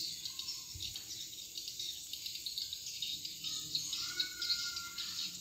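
Insects chirping in a steady, high pulsing chorus, with a faint whistle about four seconds in.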